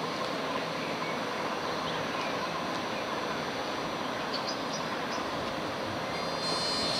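Siemens Desiro electric multiple unit (SŽ series 312) standing at the platform, its onboard equipment running with a steady hum and hiss. About six and a half seconds in, a high-pitched whine with many overtones starts up.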